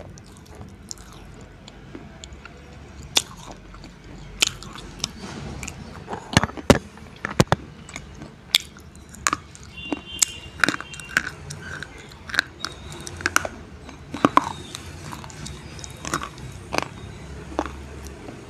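Slate pencils being bitten and chewed right at the microphone: an irregular string of sharp crunches and snaps, loudest in a cluster about six to seven and a half seconds in.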